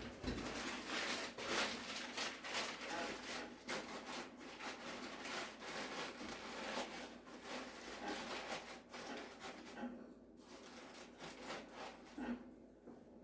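Irregular crackling and snapping of kindling burning in a wood-burning fireplace. The fire is slow to catch because a large, not fully dried round log went in before the small wood. The crackle thins out briefly about ten seconds in and again near the end.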